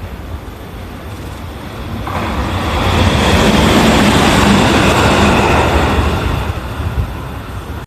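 Train passing by: a rushing rumble that swells about two seconds in, is loudest in the middle, and fades toward the end.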